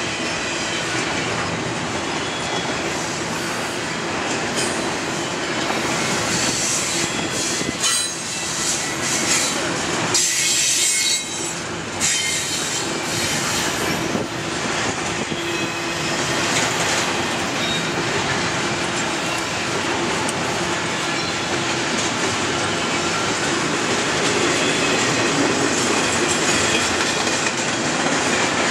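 Norfolk Southern double-stack intermodal train's container well cars rolling past at speed: a steady rumble and clatter of steel wheels on rail, with high wheel squeal coming and going in the middle.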